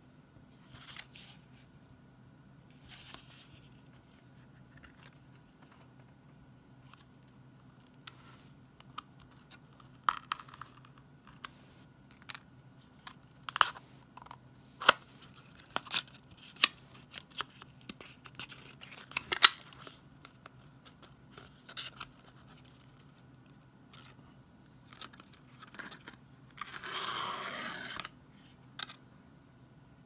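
Small paperboard box of an Apple Lightning to 3.5 mm headphone jack adapter being handled and opened by hand: scattered sharp clicks and snaps of card flaps and light rustling, loudest in a cluster midway, then one longer rustle lasting about a second near the end.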